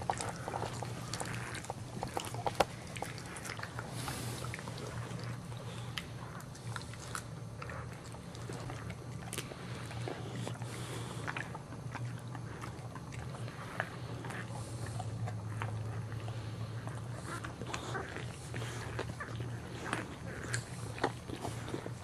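Boxer mother dog licking and mouthing a newborn puppy clean, a run of irregular wet licking and smacking sounds over a steady low hum.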